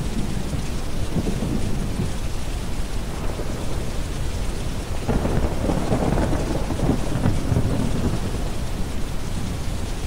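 Steady rain over a deep brown-noise bed, with rolling thunder. A louder roll of thunder swells about five seconds in and dies back by about eight seconds.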